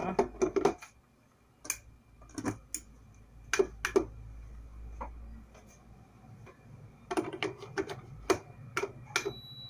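Scattered clicks and knocks of a plastic plug and socket being handled and pushed in, then, near the end, one high steady beep about a second long: the Prestige induction cooktop's power-on beep, the sign that its repaired power supply is now live.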